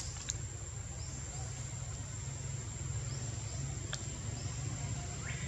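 Outdoor ambience: a steady low rumble under a constant thin high whine, with a few faint short rising chirps and a few sharp clicks near the start and about four seconds in.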